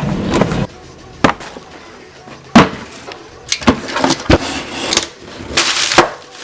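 Several sharp knocks and clacks at uneven intervals, with a short rush of noise near the end.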